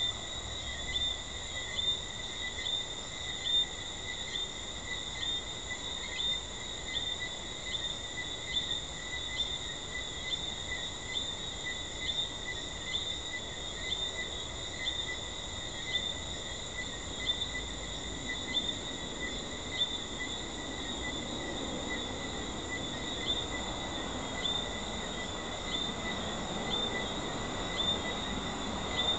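Night chorus of treefrogs: short chirping calls repeating a little faster than once a second over a steady high ringing chorus. A low rumble builds in the second half.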